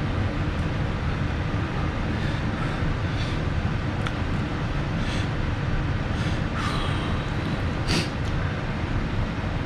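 A few short slurping and mouth sounds from ramen being eaten, over a steady low background rumble.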